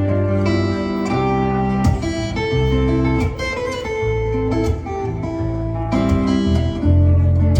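Live acoustic guitar music: a plucked guitar playing a calm, melodic tune, its notes changing every second or so over sustained low bass notes.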